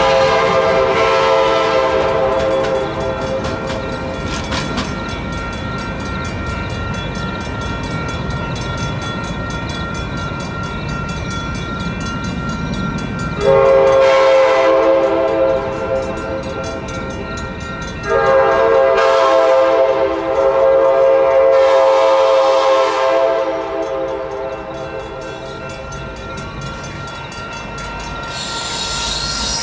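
Nathan K5LA five-chime locomotive air horn on a passenger train. The first part holds the tail of a horn blast fading away, then the rumble of a train on the rails. About halfway through, two long horn blasts sound back to back from an approaching train, and another blast begins right at the end.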